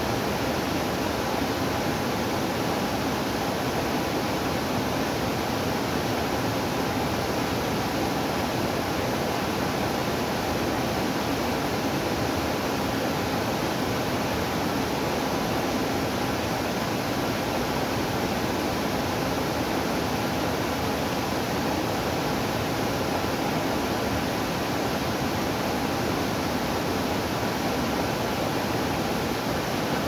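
Small waterfall spilling over a rock ledge into a pool: a steady, unbroken rush of falling water.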